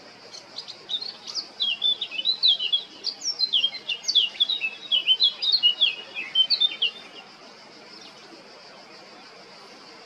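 Male Eurasian blackcap singing: a fast run of varied chirping and warbling notes that starts about half a second in and stops at about seven seconds.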